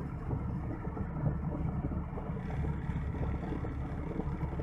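Hyundai Santro's petrol engine idling steadily at about 900 rpm with the AC compressor on as a load, heard from inside the cabin. The even idle shows the idle speed control actuator holding the revs under the AC load.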